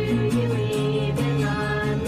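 Background music: sustained held notes over a steady beat.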